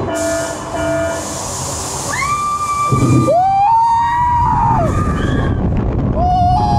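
Riders screaming on the launched Formuła roller coaster, with wind rushing over the microphone. Long screams rise and fall in pitch about two seconds in, again from about three to five seconds, and near the end.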